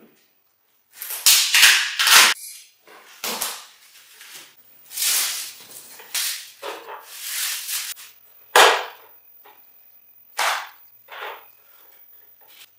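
Welding arc crackling and hissing in short, irregular bursts, each from a split second to about a second long, with one sharp crack about two-thirds of the way through.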